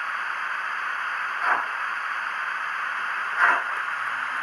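Model steam locomotive sound decoder (the Bachmann B1's) playing a steady steam hiss through a small speaker, with a short falling whoosh about every two seconds, twice.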